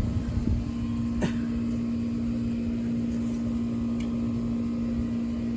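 A steady machine hum with a low rumble underneath, and a single faint click a little over a second in.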